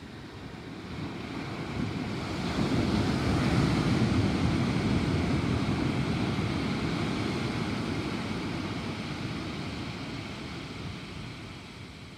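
Thunder rumbling in one long roll that builds over a few seconds, peaks, then slowly dies away.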